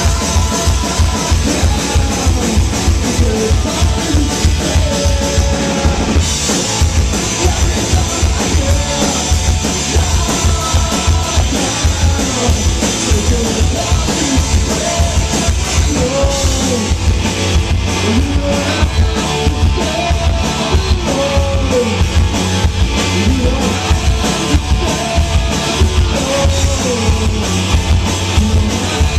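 Live rock band playing loud: electric guitars and a drum kit keeping a steady driving beat, with a man singing over them. A cymbal crash rings out about six seconds in.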